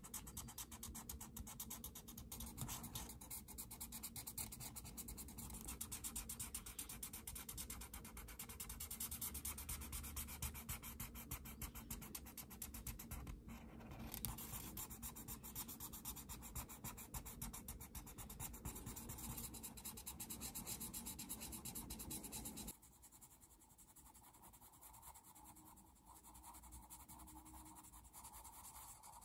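Ohuhu brush-tip alcohol markers stroking quickly back and forth on colouring-book paper, a soft rapid scratching with a brief pause about 13 seconds in. About 23 seconds in it drops abruptly to a much fainter scratching, as a colored pencil begins shading.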